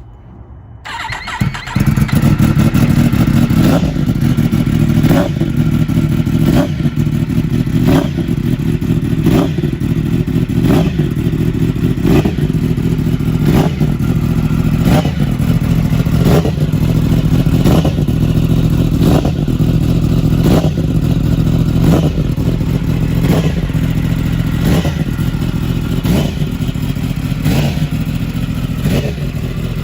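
Yamaha R1M crossplane inline-four running through a full Akrapovic exhaust, loud and steady at a near-constant speed. It comes in over the first second or two, with a faint regular beat a little more than once a second.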